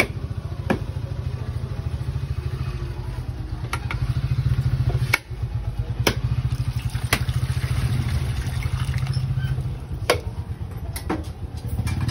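Motorized coconut grater (kudkuran) running, its spinning toothed head shredding the meat from a halved coconut pressed against it: a steady, fast low pulsing of the motor with occasional sharp clicks. The sound dips briefly about five seconds in.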